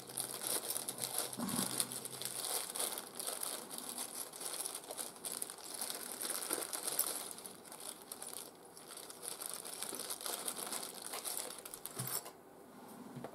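Continuous dry, scratchy rustling and scraping from hands at work on the bench, stopping sharply about twelve seconds in.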